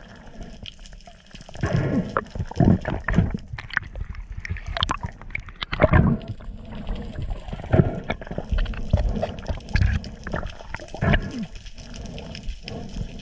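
Water gurgling and bubbling around an action camera held underwater, coming in irregular bursts with some dull knocks.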